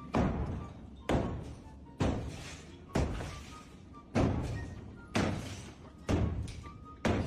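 A series of heavy thuds, eight in all about a second apart, each dying away briefly, over faint background music.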